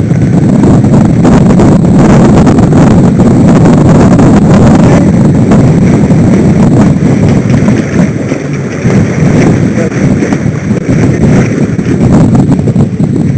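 Wind buffeting the microphone of a camera on a sailing boat under way, a loud, continuous low rumble, with water rushing along the hull beneath it.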